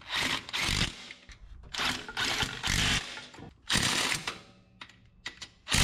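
Loose metal hardware rattling and clinking as a box of parts is rummaged through, in several short bursts.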